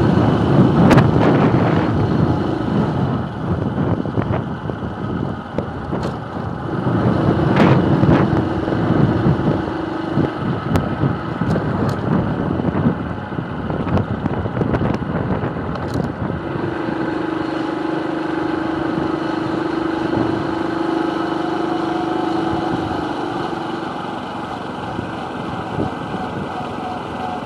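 Motorcycle engine running as the bike rides slowly, its note holding steady for stretches of several seconds, with a few sharp clicks in the first half.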